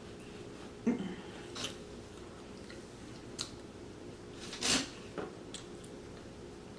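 Close-miked eating sounds: a person chewing, with a handful of short sharp mouth smacks and clicks, the loudest nearly five seconds in, over a faint steady hum.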